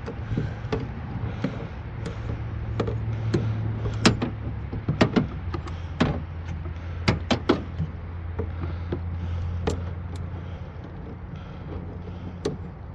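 A hammer tapping on the van's battery terminal: many sharp knocks at irregular intervals over a steady low hum. The terminal is loose and is being struck to make contact on a van with no power.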